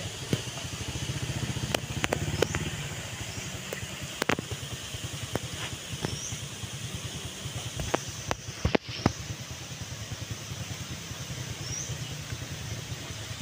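An engine running steadily nearby, its low hum strongest in the first few seconds. Short rising bird chirps come now and then, with a few sharp clicks.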